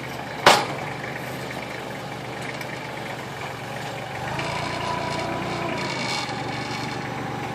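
Tractor engine running steadily, with one sharp knock about half a second in; from about four seconds a higher steady whine joins the engine sound.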